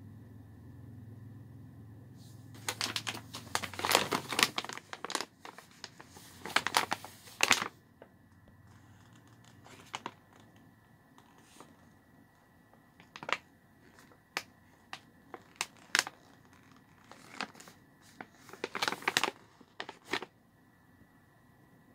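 Plastic snack pouches crinkling and crackling as they are handled and turned over. The crinkling comes in several spells of a second or two, with single crackles in between.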